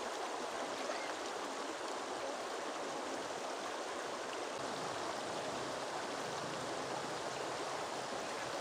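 Shallow river flowing over a stony bed: a steady, even rush of water.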